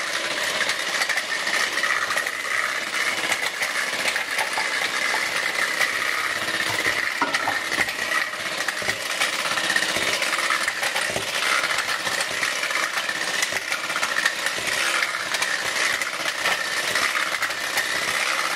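Electric hand mixer running steadily with a high whine, its beaters whirling through liquid cake batter in a glass bowl, with light clinks of the beaters against the glass.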